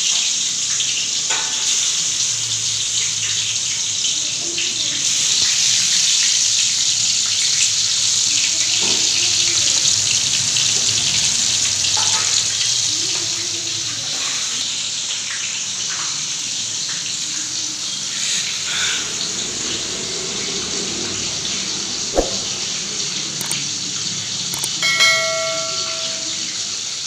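Pieces of rohu fish frying in hot oil in an aluminium kadai: a steady sizzle throughout, with a few light knocks of fish or utensil against the pan.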